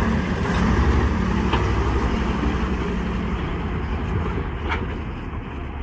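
Heavy truck engine running steadily, with a couple of brief clicks.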